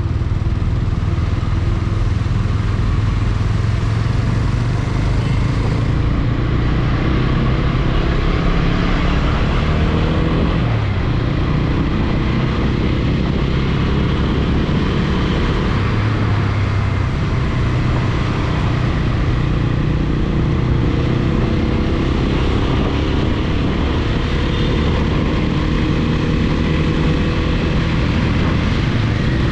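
TVS Apache RTR 200 4V motorcycle's single-cylinder engine running as the bike is ridden, heard from onboard. Its pitch falls and rises with throttle and gear changes, dropping and picking up again about a third of the way in and climbing slowly near the end.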